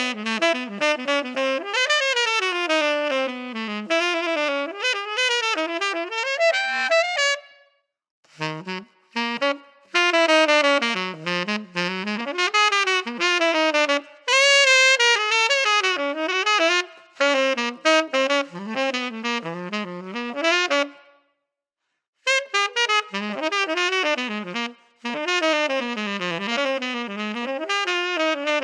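Unaccompanied saxophone, a 1959 Selmer Mark VI with a 3D-printed SYOS signature mouthpiece, playing a fast jazz transcription line. It goes in several quick-moving phrases with short breaks between them.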